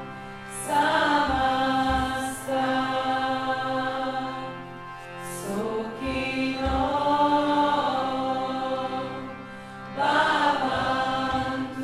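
Kirtan: female voices chanting a devotional mantra in long phrases over a steady harmonium drone. Soft low hand-drum strokes fall in pairs between the phrases.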